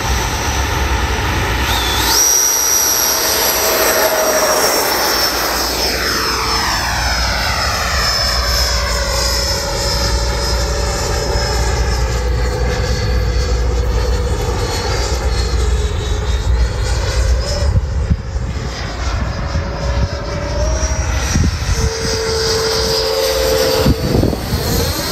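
Twin 80 mm electric ducted fans of a Freewing MiG-29 RC jet spooling up sharply about two seconds in for the takeoff, then running as a steady high-pitched whine. The pitch sweeps as the jet flies past.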